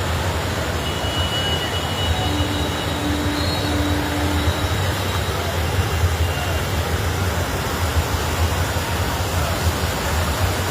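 Floodwater rushing, a steady dense noise with a deep rumble underneath.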